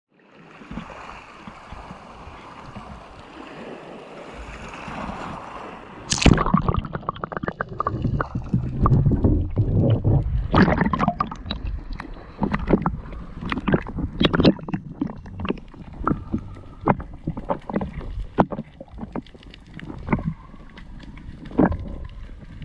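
Steady hiss for about six seconds, then a sudden loud hit and a run of irregular knocks and clacks over water sloshing and gurgling around an underwater camera.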